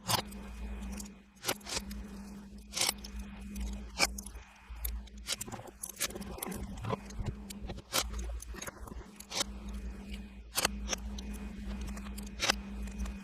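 Small metal construction-set parts clicking and scraping as they are handled, with sharp clicks at irregular intervals, about one a second, over a steady low hum.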